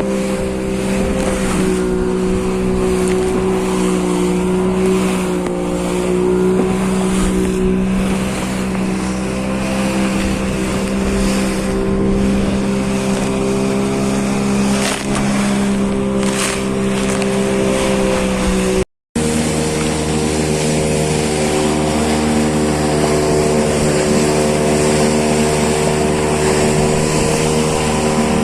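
Engine running at a steady speed, broken by a sudden short dropout about two-thirds of the way through, after which it carries on at a slightly different pitch.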